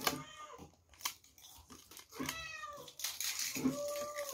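A cat meowing three times, each meow rising and then falling in pitch.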